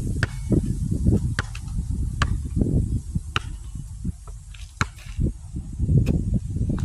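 Basketball bouncing on asphalt, sharp slaps at an uneven pace of about one a second, over a steady low rumble.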